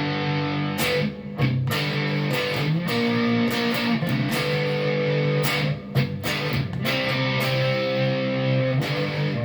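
Electric guitar with a GFS humbucker in the neck position, played through a Marshall Origin amp with a little gain: sustained strummed chords that change every second or so, each ringing on until the next is struck.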